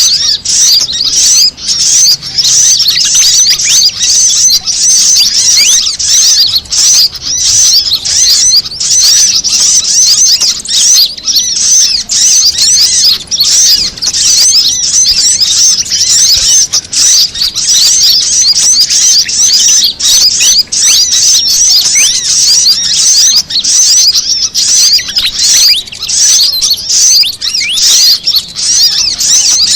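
Bird-lure recording of small songbirds: fantail calls mixed with sunbird calls. It is loud, dense, high-pitched chirping and twittering, with rapid overlapping notes and no pauses.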